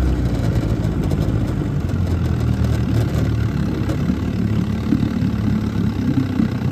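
Evinrude 9.5 hp two-cylinder two-stroke outboard motor throttled back from higher revs right at the start, then running at low speed with an uneven low throb.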